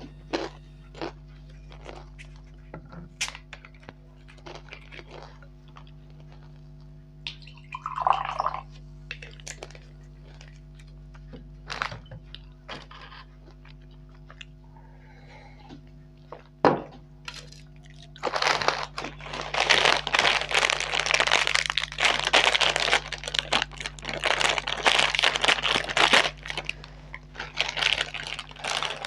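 Close-miked eating sounds: scattered crisp crunches and mouth clicks. About two-thirds of the way through, these give way to loud, continuous crinkling of a plastic chip packet being handled and opened.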